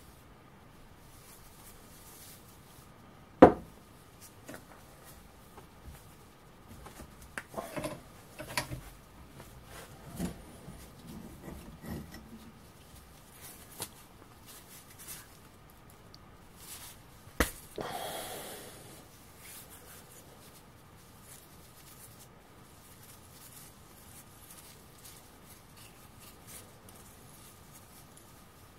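Heavy steel mortar parts being handled at a bench vise. A sharp knock comes a few seconds in, scattered clinks and taps follow, and about halfway through there is another knock followed by a short scrape.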